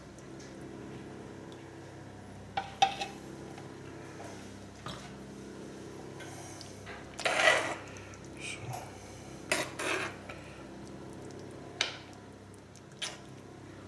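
Metal spoon clinking and scraping against a stoneware baking dish while stirring flour into a thick gulasch to thicken it, with about half a dozen separate clinks. A low steady hum runs underneath.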